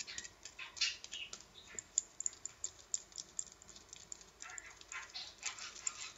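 A small piece of aluminium foil being crinkled and folded between the fingers, giving irregular crackles and ticks.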